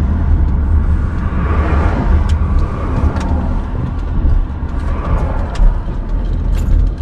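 Car driving, heard from inside the cabin: a steady low rumble of engine and tyre noise, with a few light clicks scattered through.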